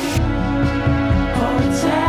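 Background music: a song with a steady beat.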